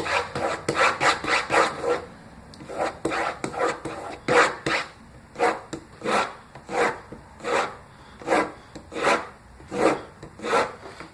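Yukon Gear folding knife blade being stropped, its edge drawn repeatedly across the strop with a rubbing sound: quick, close strokes at first, then slower, evenly spaced strokes from about two seconds in, honing the edge after sharpening.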